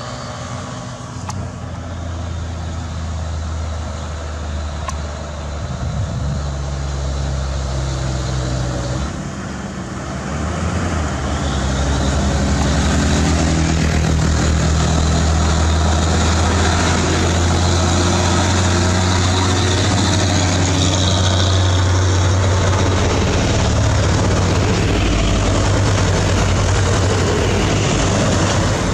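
Mitsubishi Fuso truck's 220 PS diesel engine labouring as it hauls a heavy load uphill in a low gear, a steady deep engine note. It grows louder about twelve seconds in as the truck draws near and passes.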